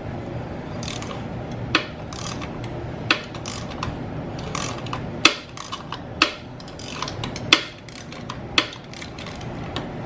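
Hand tools working the bolt and nut that hold a chain tensioner wheel: about a dozen sharp, irregular metallic clicks and knocks over a steady low hum.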